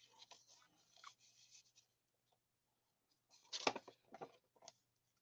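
Faint paper rustling from handling a handmade journal: a paper tag slid down into its pocket, then a page turned about three and a half seconds in, the loudest sound.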